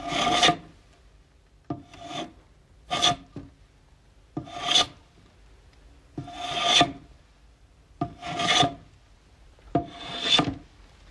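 Metal hand plane shaving a wooden board in seven separate strokes, one every second or two. Each stroke starts with a sharp click and rasps for about half a second.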